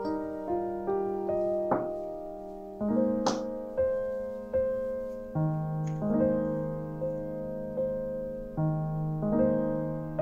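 Soft background piano music: single notes and chords struck one after another and left to ring out.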